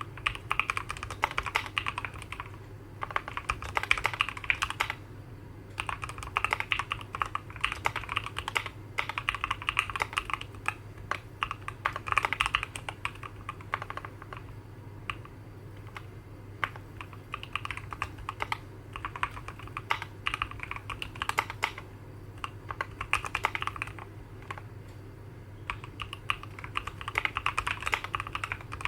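Typing on a Keychron Q11 split mechanical keyboard with Gateron Northpole switches and ABS single-shot keycaps. Quick runs of keystrokes come in bursts of a second or two with short pauses between. The keys give a light, round-edged clack with a very quiet bottom-out.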